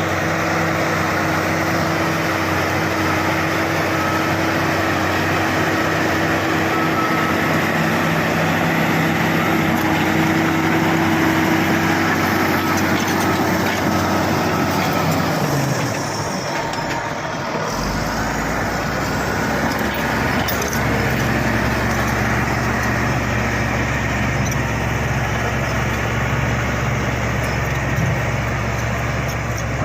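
Bulldozer's diesel engine running steadily. About halfway through its note drops, then settles into a lower, deeper drone.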